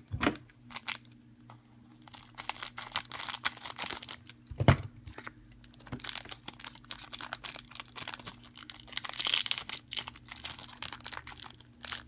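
Pokémon card booster-pack wrapper being torn open and crinkled, with many short crackles, and one sharp knock a little under five seconds in.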